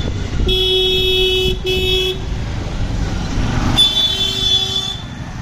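Vehicle horns honking in street traffic: a second-long blast, a short one, then another second-long blast near the end, over a steady rumble of engines.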